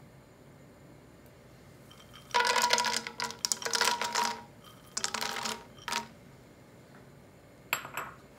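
Whole almonds clattering and rattling as they are tipped from a small glass bowl into a pan of hot ghee: a long ringing clatter about two seconds in, a second shorter one around five seconds, and a brief clack near the end.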